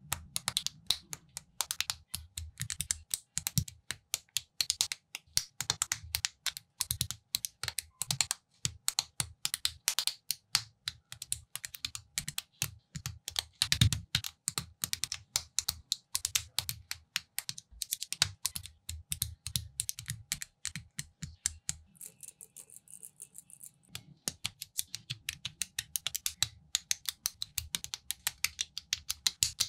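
Plastic Technic building pieces clicking and snapping together as pins and axles are pushed into beams by hand, in a quick, uneven run of sharp clicks. The clicks thin out for a couple of seconds past the two-thirds mark.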